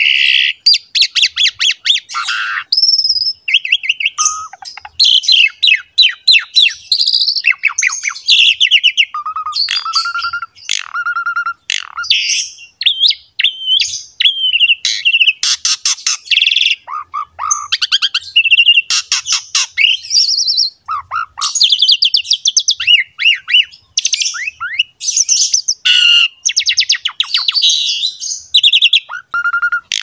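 Asian pied starling (jalak suren) singing in full, energetic song: a continuous, varied stream of clear whistled notes mixed with rapid, harsh rattling trills.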